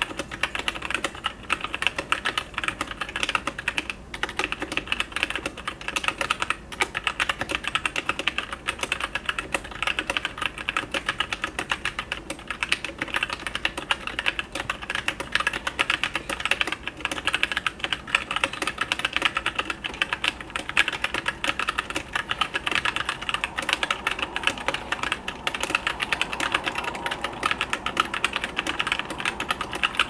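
Continuous typing on a Qisan Magicforce 68 mechanical keyboard with Outemu Brown tactile switches: a steady run of keystrokes, several a second, with the metallic spring ping this board has a lot of.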